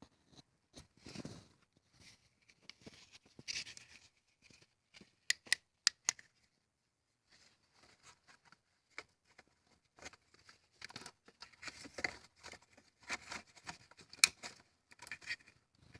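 Scattered light clicks, taps and rustles of hands handling the camera and parts at close range, more frequent in the second half.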